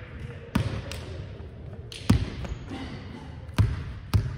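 A volleyball bounced on a hardwood gym floor, about five sharp thuds at uneven gaps, with two close together near the end, each ringing briefly in the hall.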